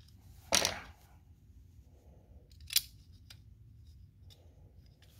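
Small parts clicking as they are handled and fitted by hand on a chainsaw's clutch side: a loud short clack about half a second in, a sharp click shortly before three seconds, and a few faint clicks between.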